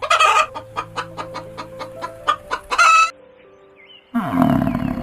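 A chicken clucking in a quick, regular series, ending in a louder drawn-out call. A loud rough sound starts about four seconds in, over steady background music.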